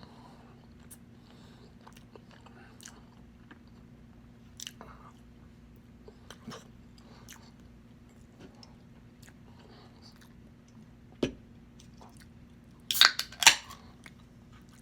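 Chewing and biting spicy pork adobo, with soft wet mouth smacks and scattered small clicks. There is a sharp knock about eleven seconds in, and a cluster of loud bursts of noise near the end.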